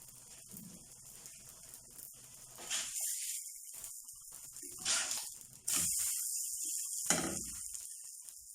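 Rghaif dough frying in a hot pan: a steady sizzle with a few handling knocks and scrapes, the sizzle jumping up suddenly about five and a half seconds in and then slowly easing.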